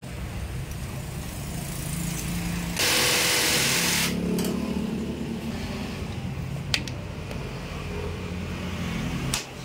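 Coolant gushing from a scooter engine's drain into a plastic tub with a loud hiss for a little over a second, about three seconds in; later, used engine oil runs in a thin stream into a container. A steady low hum runs underneath, with two light clicks near the end.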